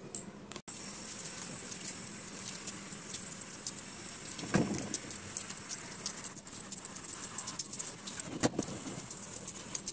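A boiled egg being peeled by hand: a dense run of small clicks and crackles from the shell, mixed with bangles clinking on the wrist.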